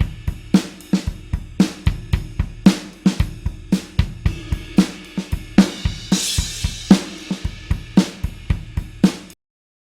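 Rock drum kit playing a steady alternative-rock beat of kick, snare and hi-hat, with a cymbal crash about six seconds in. The beat stops abruptly near the end.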